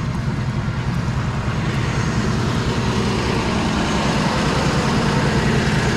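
Tow truck engine running steadily close by, a constant low throb.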